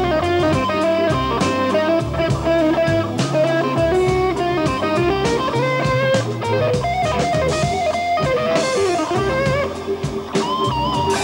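Electric guitar solo in a slow blues, with bent and wavering notes, over a drum kit and Hammond B3 organ backing.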